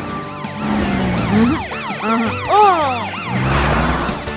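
Cartoon police siren sound effect wailing in rapid, repeated rising-and-falling sweeps, with a brief rush of noise near the end.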